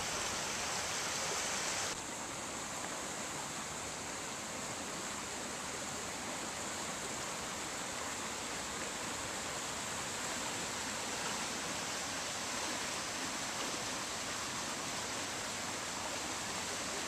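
Steady rushing of a rain-swollen river in flood, an even watery hiss with rain falling on the water. The hiss drops slightly about two seconds in and then holds steady.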